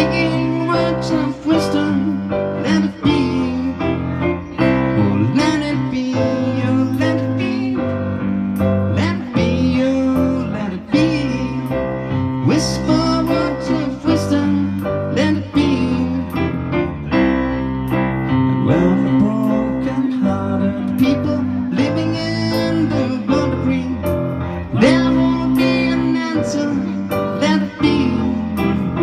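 A live band playing a song: electric bass, electronic drum kit, keyboard and guitar, with a steady drum beat.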